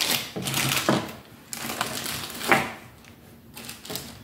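Clear plastic wrapping rustling and crinkling as it is handled, with light clicks of small metal hardware such as screws and screwdriver bits.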